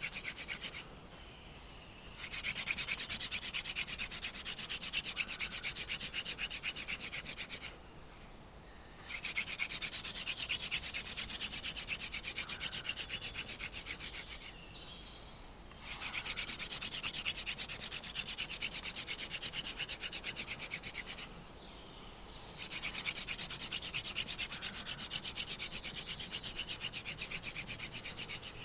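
Wooden hand-drill spindle spun back and forth between the palms, grinding into a wooden fireboard to make fire by friction: a fast, scratchy rubbing in runs of about five seconds with short pauses between them.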